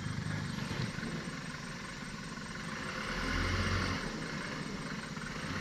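Loaded light truck's diesel engine running at low speed as it crawls through mud, with a deeper swell of rumble about three seconds in.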